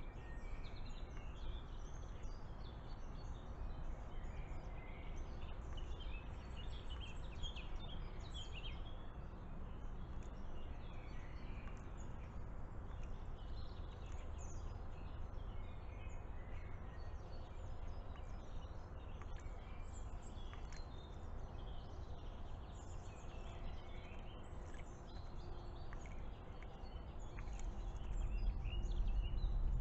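Birdsong from several birds in the garden, scattered short chirps and phrases, over a steady low background rumble that grows louder near the end.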